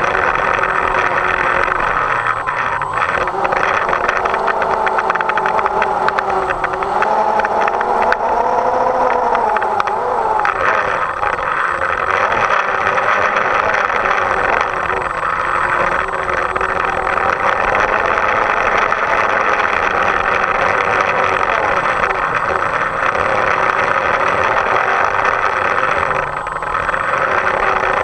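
DJI Phantom quadcopter's electric motors and propellers, heard up close from the aircraft: a steady buzzing whine whose pitch wavers up and down as the motors change speed, with a constant hiss of air and wind over it.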